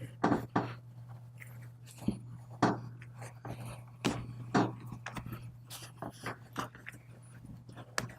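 Installation cord being pulled out of a rubber rear-window weatherstrip, drawing the weatherstrip lip over the pinch weld: irregular rubbery scrapes and crunching snaps. A steady low hum runs underneath.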